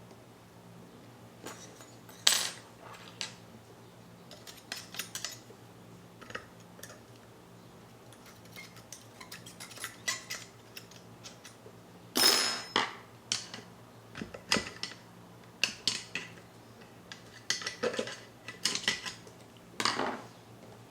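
Metal parts of a Mazzer Mini coffee grinder clinking and tapping as they are handled by hand during disassembly: scattered sharp clicks and clinks, the loudest about two, twelve and twenty seconds in. A faint steady low hum lies underneath.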